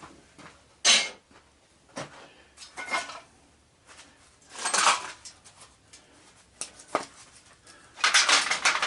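Scrap metal pieces clattering as they are handled and dropped: several separate clanks, then a longer rattle near the end.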